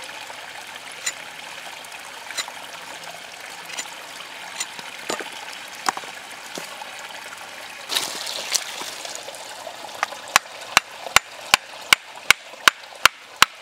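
Small stream trickling steadily, with scattered single cuts of a knife into wood in the first half. From about ten seconds in come quick, regular strikes of the Condor Hudson Bay's carbon-steel blade on a wooden stick, about two or three a second.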